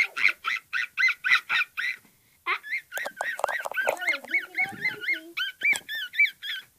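A run of high-pitched squeaky calls, about four a second, with a short pause about two seconds in; the later calls each rise and fall in pitch. They stop just before the end.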